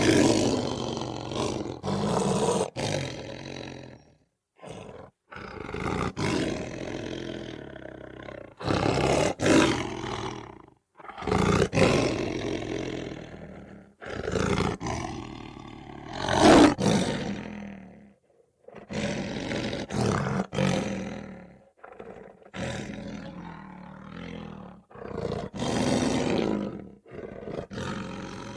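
Lion roaring: a series of about ten separate roars, each one to three seconds long with short silent gaps between them. The loudest comes a little past halfway.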